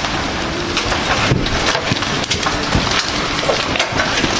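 Heavy thunderstorm rain pouring down steadily, with scattered sharp knocks of hailstones striking hard surfaces.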